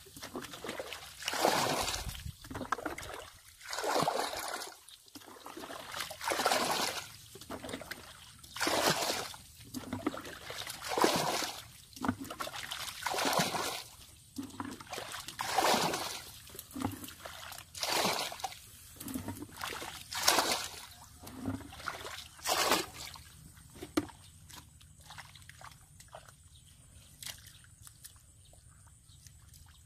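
Muddy water being bailed with a bucket: a scoop and a sloshing pour about every two seconds, a dozen or so times. The bailing stops about 23 seconds in, leaving only faint small sounds.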